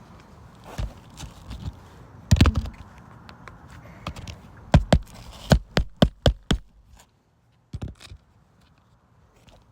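Hammer striking roofing nails: one heavy blow, then a quick run of about seven strikes around five seconds in.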